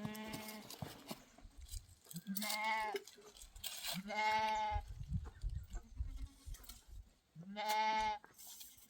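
Sheep and goats bleating: four separate drawn-out bleats a couple of seconds apart.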